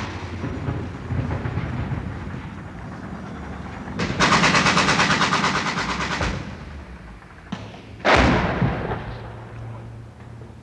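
Riot ambience: crowd din, then a rapid burst of automatic gunfire lasting about two seconds. A little later come a sharp crack and a single loud gunshot or blast that rings out and dies away.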